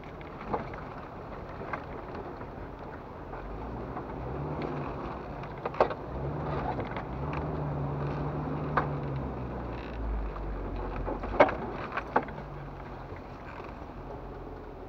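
Jeep Wrangler TJ engine heard from inside the cab, crawling slowly over a rough dirt trail. The engine note comes up with throttle from about four seconds in and eases off again after about ten seconds. Several sharp knocks and clunks come from the body and suspension over the bumps, the loudest a little past eleven seconds.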